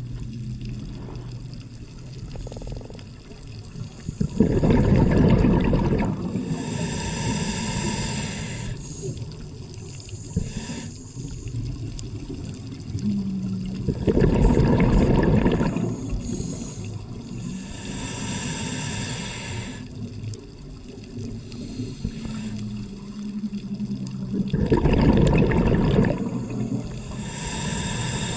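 Scuba diver breathing through a regulator underwater: three breath cycles about ten seconds apart, each a loud rush of exhaled bubbles and a hissing draw of air through the regulator.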